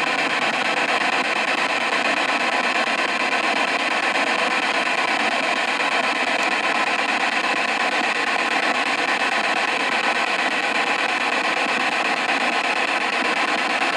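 Spirit box radio scanner playing a steady rush of white-noise static through a small handheld speaker.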